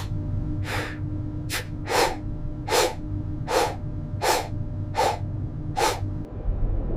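A voice gasping in short, sharp, breathy catches, about eight of them in a steady rhythm, as a sneeze builds up. A steady low hum runs underneath.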